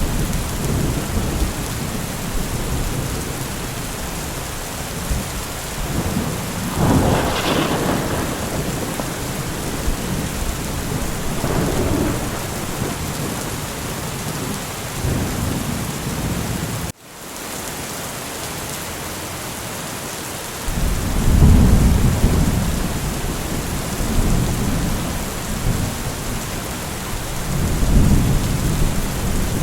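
Steady heavy rain with low rolling thunder that swells several times. About halfway through the sound cuts out for an instant, then comes back quieter and more even for a few seconds before the thunder returns.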